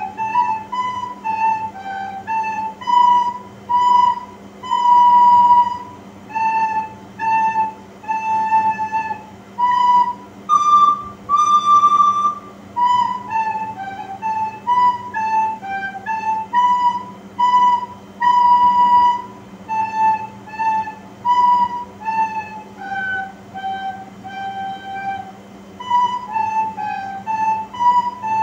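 Two soprano recorders playing a simple polka tune together, mostly short detached notes with a few longer held ones. A faint steady low hum runs underneath.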